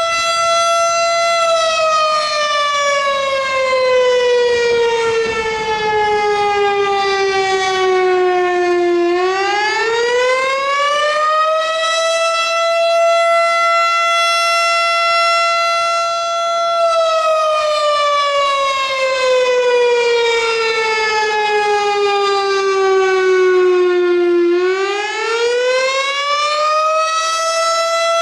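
Air-raid-style fire siren wailing loudly in one tone. It holds a high pitch, slides slowly down over about seven seconds, then winds back up over about three seconds and holds again. The cycle runs twice.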